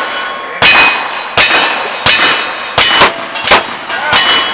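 Rapid rifle fire from a lever-action rifle on a cowboy action shooting stage: about six shots, roughly one every 0.7 seconds, each followed by the ring of a struck steel target.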